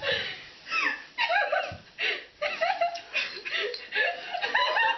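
People laughing and chuckling in short bursts.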